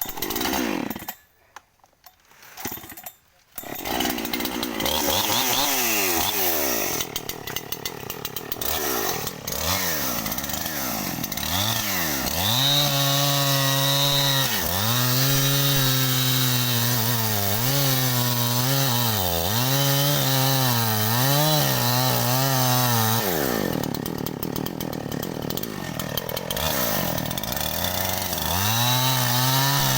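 52cc single-cylinder two-stroke petrol chainsaw engine: after a few short, broken sounds it runs continuously from about four seconds in. Through the middle it is revved up and down again and again, its pitch rising and falling. It drops to a lower speed for a few seconds, then revs high again near the end.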